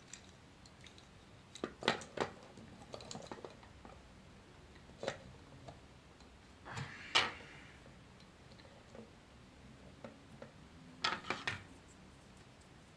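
Small plastic clicks and taps from a Combiner Wars Groove Transformers action figure being bent into a pose by hand: its ratcheting arm and shoulder joints clicking and the plastic knocking as it is handled, in scattered clusters with the loudest tap about seven seconds in.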